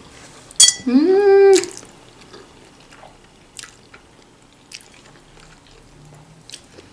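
A woman slurps in udon noodles with a quick wet slurp, then gives a short closed-mouth 'mmm' that rises in pitch. After that comes quiet chewing with a few faint mouth clicks.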